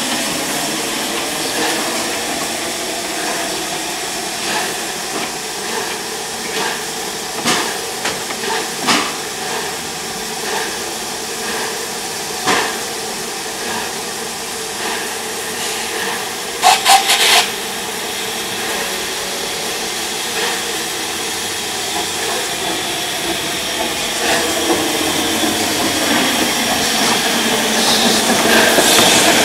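Narrow-gauge steam tank locomotive hissing steam as it moves slowly, with scattered metallic knocks and a quick cluster of sharp clanks about halfway through. It grows louder near the end as the engine comes close.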